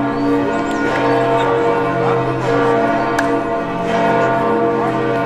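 Church bells ringing, several overlapping tones swelling and fading continuously.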